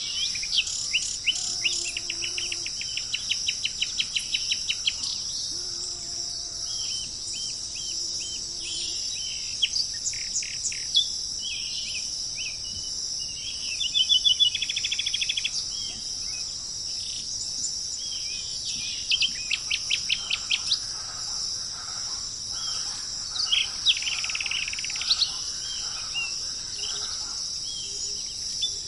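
Birds calling in quick series of repeated short chirps, with a trill about halfway through, over a steady high-pitched chorus of insects.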